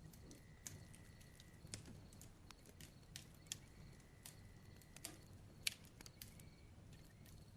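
Near silence: faint room tone with scattered soft clicks and a couple of faint, brief high thin tones.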